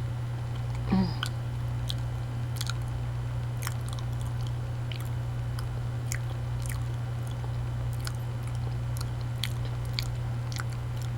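Mouth chewing a soft banana, with many short wet smacking clicks. A brief louder sound with a falling pitch about a second in, over a steady low hum.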